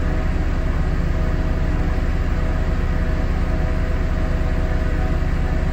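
Tractor engine running steadily under load, a low, even drone with no changes.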